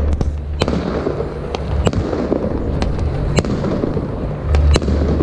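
Fireworks going off: sharp bangs at irregular intervals, several within a second at times, over a dense continuous crackle and a low rumble.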